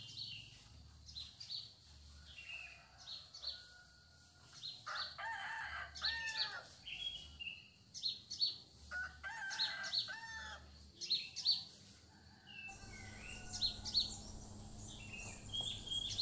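A rooster crowing twice, each crow lasting about a second and a half, with small birds chirping throughout.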